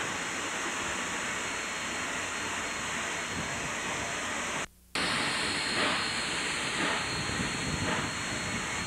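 Steady hiss and working noise inside the cab of a K-36 narrow-gauge steam locomotive pulling a heavy train upgrade. The sound cuts out for a moment near the middle, then faint regular exhaust beats come through about once a second.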